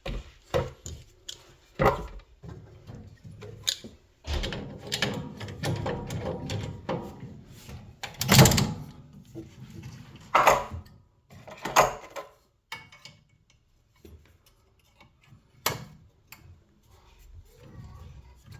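Irregular knocks, clicks and clatter, as of hard objects being handled and set down, with a few louder knocks around the middle and a brief lull late on.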